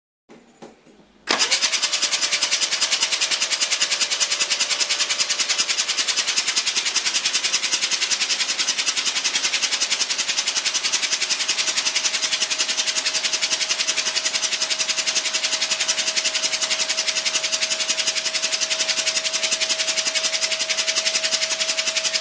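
1972 Mazda RX3's freshly rebuilt 10A twin-rotor Wankel engine running steadily with a fast, even pulse and a thin whine that creeps slightly up in pitch. It comes in suddenly about a second in.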